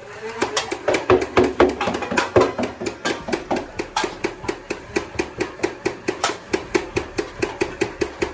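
Battery-powered Nerf Rival foam-ball blaster firing full-auto: a rapid, even string of shots, about five a second, starting about half a second in, over the steady whir of its motor.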